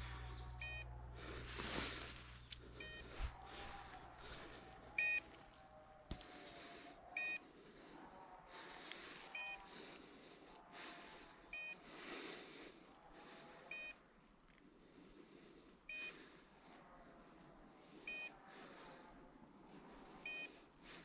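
A short electronic beep repeats about every two seconds, over faint rustling. A low steady hum stops about six seconds in.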